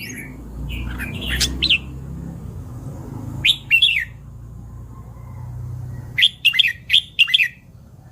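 Red-whiskered bulbul singing in short, quick whistled phrases: one about a second in, another around three and a half seconds, and a run of four rapid notes near the end. A low steady hum runs underneath.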